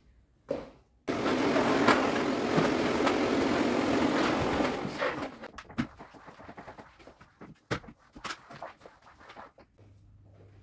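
Household cleaning noises: a steady rush of noise starts suddenly about a second in and fades after about four seconds, followed by scattered knocks and clatter.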